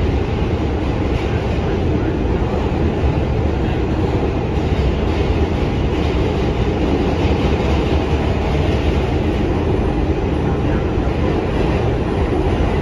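Steady, loud running noise inside a New York City Subway A train car under way: the rumble of wheels on the rails, with no single event standing out.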